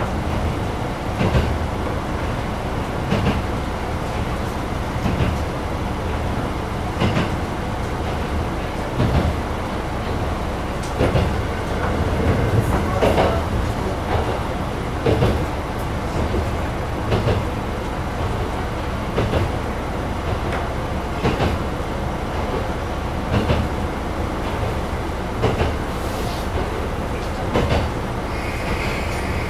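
Diesel railcar of the Hitachinaka Seaside Railway Minato Line running along the line, heard from inside the car: a steady rumble with the wheels knocking over rail joints about every two seconds.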